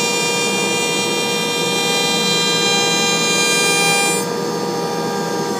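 CNC router spindle running at high speed with a steady high-pitched whine, its bit taking the full-depth final jointing pass along the edge of a maple board. About four seconds in the sound drops a little and turns duller.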